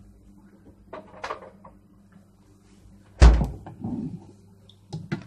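A single heavy thump about three seconds in, with a few lighter knocks and clatter around it.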